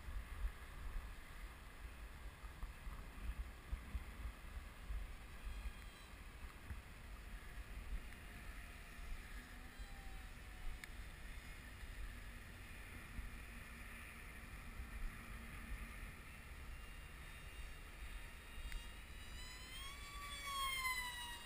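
Wind rumbling on the microphone, with the faint whine of a FunJet RC plane's electric motor and propeller. Near the end the whine grows and sweeps up then down in pitch as the plane makes a fast pass.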